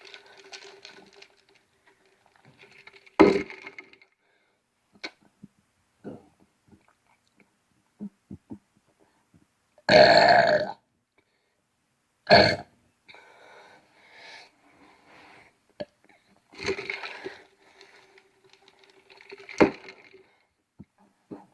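A person burping several times in a row, with separate burps of varying length; the loudest and longest comes about ten seconds in, and shorter ones come about three seconds and twelve seconds in.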